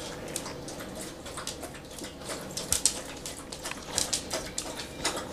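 Dog lapping water from a bowl: a string of short, uneven wet clicks several times a second, louder bunches about three and four seconds in.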